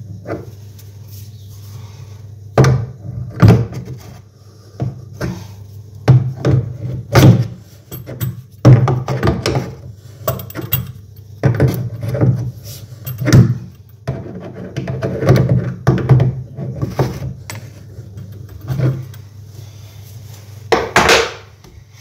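Adjustable spanner tightening the nut on a bath tap's braided flexi connector: irregular metallic clunks, knocks and scrapes as the spanner is set on the nut, turned and refitted.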